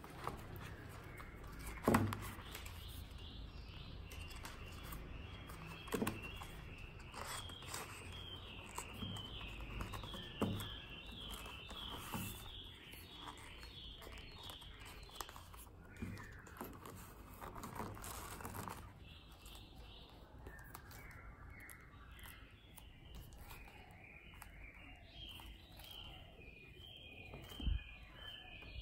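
Occasional thumps and light rustling as Hahnemühle Sketch & Note paper notebooks are handled and set down on a table: four distinct knocks, the loudest near the start and near the end. Behind them, birds chirp in quick repeated series.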